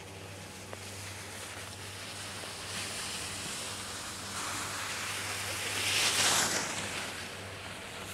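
Snowboard edges scraping over packed snow, a rushing hiss that builds and is loudest about six seconds in, then eases off.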